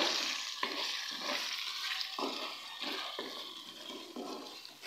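Chicken pieces in masala sizzling in a metal karahi as a spatula stirs them and scrapes the pan a few times. The sizzle fades gradually.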